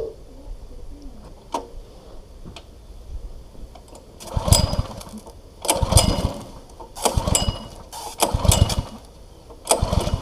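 Five hard pulls on the recoil starter of a Honda engine on a gas pressure washer, each a short whirring turnover about a second and a half apart, starting about four seconds in. The engine doesn't catch: it is being cranked on full choke, on its first start.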